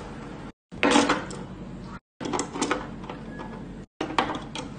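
Plastic parts of a slush machine's dispensing tap clicking and knocking as a spring and plunger are fitted into the clear tap housing, in a few short bursts of clicks.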